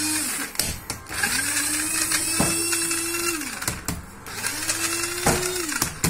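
Small electric chopper grinding peeled garlic cloves into a paste, run in pulses: the motor whine rises as it spins up and drops away each time it is released, once just after the start, then a longer run of about two seconds and a shorter one near the end.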